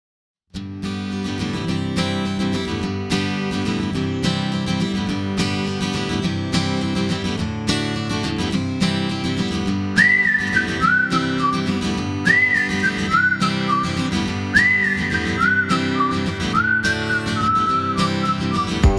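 Background music: acoustic guitar picking, joined about ten seconds in by a whistled melody in short phrases that slide up into each note.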